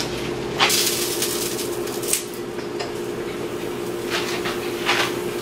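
Clinks and knocks of a frying pan and utensils being handled at a kitchen stove, over a steady hum.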